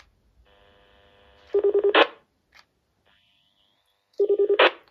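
Roger beep of a President George II CB transceiver on its second setting. A quick run of rapid beeps ends in a short high chirp, like an older radiotelephone dialing. It plays twice, about two and a half seconds apart.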